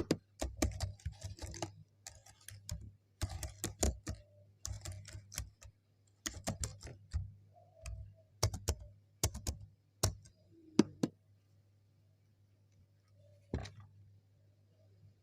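Typing on a computer keyboard: key clicks in short, irregular bursts that stop about three-quarters of the way through, with one more click near the end.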